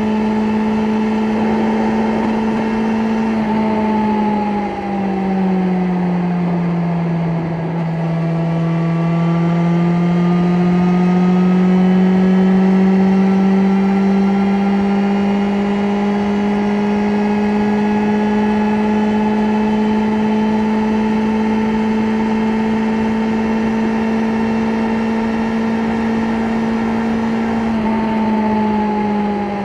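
BMW S1000XR's inline-four engine pulling smoothly in sixth gear. Its note falls about four seconds in as the bike slows, then climbs slowly for about twenty seconds as it gathers speed, and falls again near the end.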